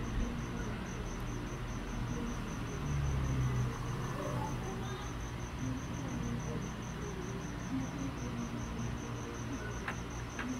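A cricket chirping in an even, fast pulsing trill over a low steady hum, with a few faint clicks near the end.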